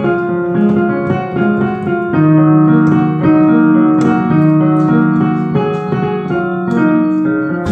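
Instrumental keyboard music: a piano-like melody of held notes over steady chords, without singing.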